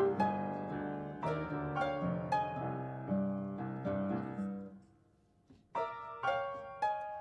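Chamber music: piano, classical guitar and harp playing a repeating plucked ostinato figure. The notes thin out and stop for about a second, about five seconds in, then the figure starts again.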